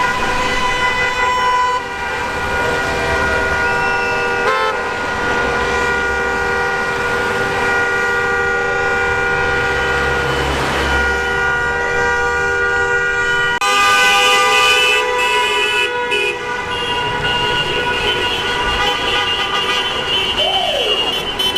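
Many car horns blaring at once in long, held blasts that overlap into a steady chorus of tones: mass honking by drivers in protest. A shriller horn joins about two-thirds of the way through.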